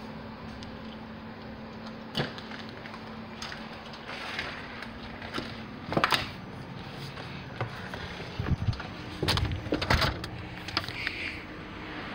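A door's knob turning and doors opening and closing, with scattered knocks and clatters from handling and steps, loudest about six seconds in and again between eight and ten seconds. A low steady hum sits under the first part.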